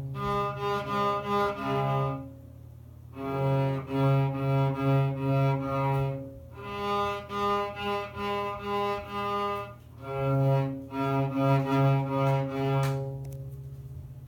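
Cello bowed by a young beginner: short repeated bowed notes, about two a second, in four phrases with brief pauses between them, the last note left ringing out near the end.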